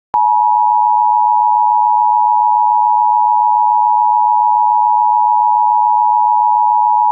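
Emergency Alert System attention tone: one steady, unwavering tone that switches on abruptly just after the start and holds at the same pitch and loudness throughout.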